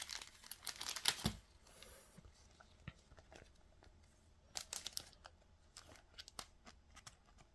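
Trading cards and their plastic being handled: a quick run of crinkling and rustling in the first second or so, then faint scattered clicks and taps, with a small flurry about halfway through.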